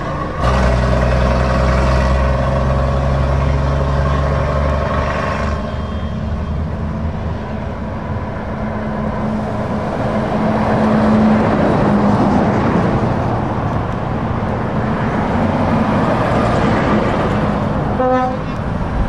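Heavy diesel lorries, among them a Volvo FH Globetrotter, driving past one after another, each engine loud and steady as it goes by. A short horn toot sounds near the end.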